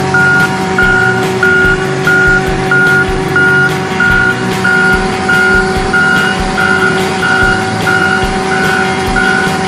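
Backup alarm of a John Deere 624K wheel loader beeping steadily at one pitch, about three beeps every two seconds, over the loader's engine running.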